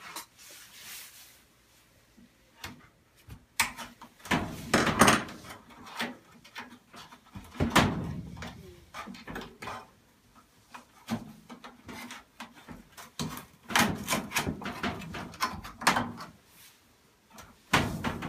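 Irregular knocks, clanks and clatter from handling and working on a clothes dryer's metal cabinet and parts, coming in bunches with short quiet gaps between.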